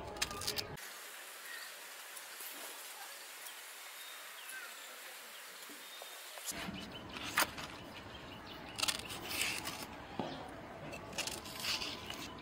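Faint, steady outdoor background hiss. From about six and a half seconds in come scattered light clicks and scrapes of a knife peeling small raw green bananas.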